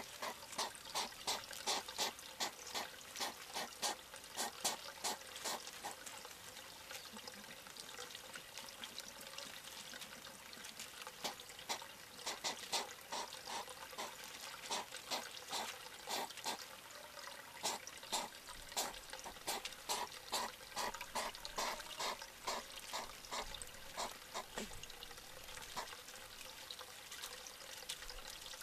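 European hedgehogs at close range making short, wet, snuffling pulses, about three a second, in bouts with a pause of a few seconds after about six seconds.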